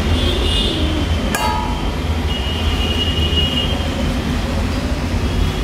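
Steel serving spoon clinking against steel bowls while food is served, with one sharp ringing clink about a second in, over a steady low rumble.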